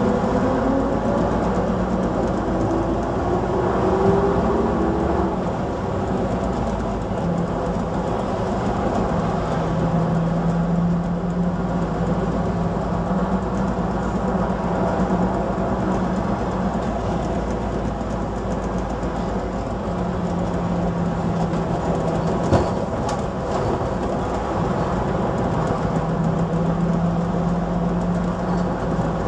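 Preserved London Transport RT double-decker bus's AEC six-cylinder diesel engine and transmission, heard from the upper deck as the bus drives along. A whine rises in pitch over the first few seconds as it accelerates, then the bus runs on with a steady hum that fades in and out, with wind noise on the microphone. A single sharp knock comes about three-quarters of the way through.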